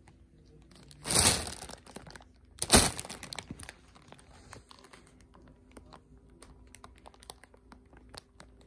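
Clear plastic bag crinkling as a cat shifts inside it: two loud rustles, about a second and nearly three seconds in, then light scattered crackles.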